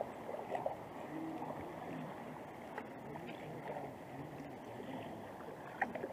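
Kayak-style paddles dipping and splashing in calm river water beside inflatable canoes, with low water lapping against the hulls and a few sharper splashes near the start and near the end.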